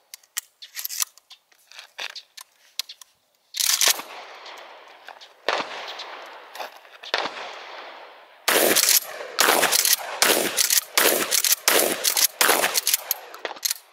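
Gunfire: a few faint clicks, then three loud single shots a second or two apart, each with a long echoing tail, then a fast string of about ten shots at roughly two a second.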